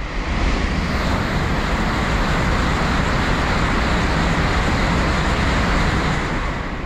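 Tokaido Shinkansen bullet train passing through a station at high speed without stopping: a loud rush of air and wheels on rail that swells as it arrives, holds steady while the cars go by, and eases off near the end.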